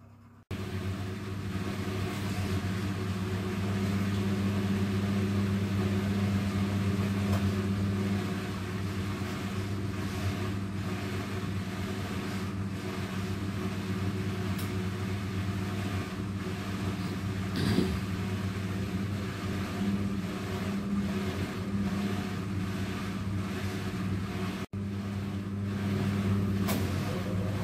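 AEG Lavamat 800HC front-loading washing machine draining: the drain pump hums steadily while the drum tumbles the wet load to distribute it ahead of the spin. The sound starts abruptly about half a second in and has one very short break near the end.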